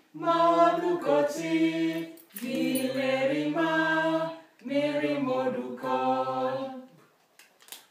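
A small group of adult voices, women and a man, singing a short Lugbarati letter-sound song unaccompanied, in three phrases of about two seconds each with brief gaps between them.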